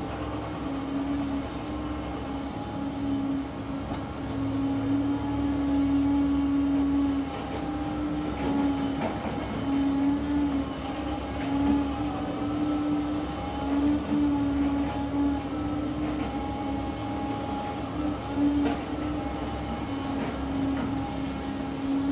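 Volvo crawler excavator at work: its diesel engine and hydraulics run with a steady whining hum that shifts slightly in pitch and level as it digs and swings, with a few brief knocks from the bucket.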